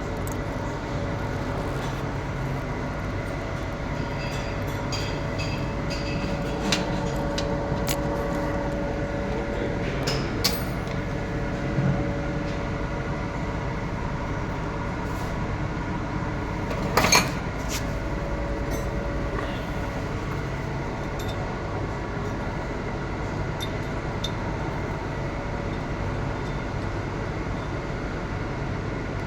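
Arc welding on a pipe root pass: the arc crackles and hisses steadily, with a steady machine hum underneath and occasional sharp pops, the loudest about seventeen seconds in.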